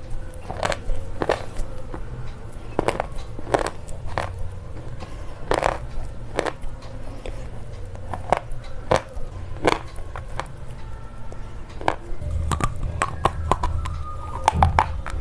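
Slate pencil being bitten and chewed, sharp crisp crunches every half second to a second, coming faster near the end.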